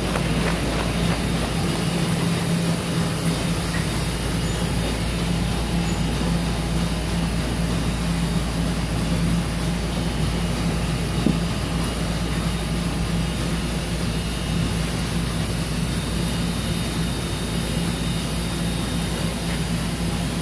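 Conveyor-belt production-line machinery running steadily, with a constant low hum and an even mechanical rush. There is one brief louder click about eleven seconds in.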